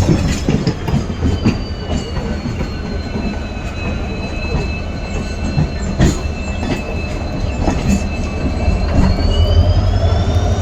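WDP4D diesel locomotive running, its 16-cylinder two-stroke engine giving a deep steady hum under a high whine that sinks slightly, holds, then climbs again near the end. Scattered clicks of wheels over rail joints.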